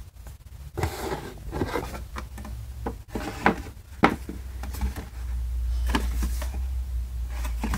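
Cardboard board-game box being handled on a wooden floor: lifted, turned over and set down, with scraping and rubbing of cardboard and several sharp knocks.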